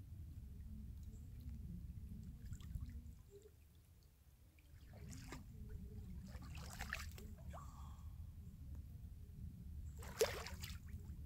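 Water sloshing and splashing around a person wading out of a cold pond, in a few separate splashes from about five seconds in, the loudest near the end, over a steady low rumble.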